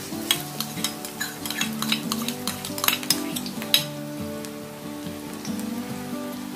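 Minced garlic frying in hot oil in a wok: a dense sizzle with many crackles as the garlic goes in, thinning to a steadier sizzle after about four seconds. Soft background music with held notes plays underneath.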